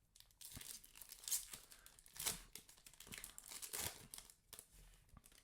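Foil booster pack wrapper being torn open and crinkled by hand, a run of faint crackles with the loudest tears about one, two and nearly four seconds in.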